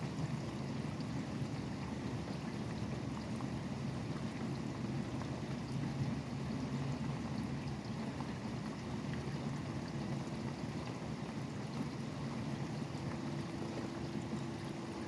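Steady rain falling, over a low rumble of highway traffic. A faint steady hum joins about ten seconds in.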